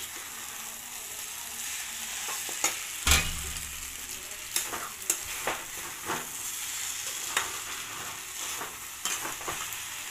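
Macaroni and instant noodles sizzling in a hot wok while a metal spatula stirs them, scraping and knocking against the pan again and again. The loudest knock comes about three seconds in.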